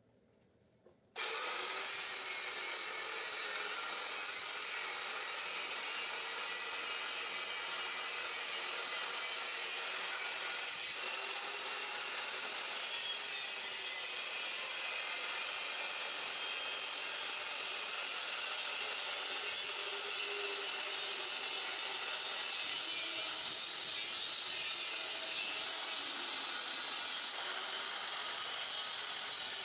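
A power tool cutting through the steel shell of a scroll compressor. It starts suddenly about a second in and then runs at a steady level.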